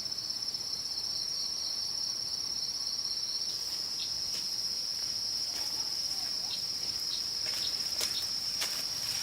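Insects, crickets or the like, trilling in a steady high-pitched chorus. Faint scattered clicks and rustles come in about halfway through.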